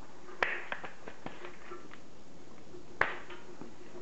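Homemade spring-powered pump-action BB shotgun being worked and fired: two sharp snaps, one near the start and one about two and a half seconds later, with a few lighter clicks between them.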